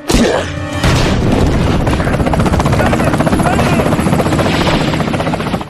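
Film action-scene soundtrack: a helicopter's rotor chopping fast and steadily under dense noise. It cuts off suddenly at the end.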